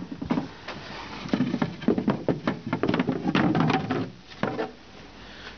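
Painted wooden body panels being lifted off and handled: a run of knocks, taps and scrapes of wood on wood, easing off about four seconds in.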